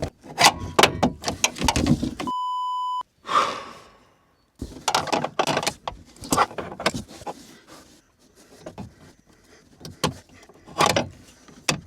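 A short, steady electronic censor bleep about two seconds in. After it come irregular clicks and knocks of hands working a tailgate gas strut and its spring retaining clip.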